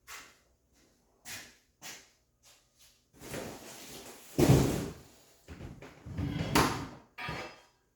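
Handling noises as objects are moved about: scattered light knocks, a longer noisy stretch midway, and two loud clunks about four and a half and six and a half seconds in.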